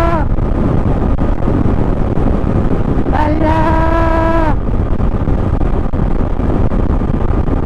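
Steady wind and road noise while riding a Honda ADV 150 scooter, with a man singing one held note about three seconds in.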